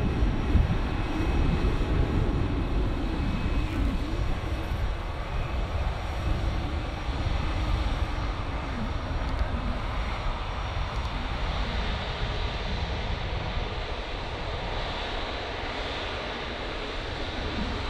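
Jet engines of a taxiing Airbus A320 airliner at taxi power: a steady rumble with a thin whine, gradually getting quieter as it moves past.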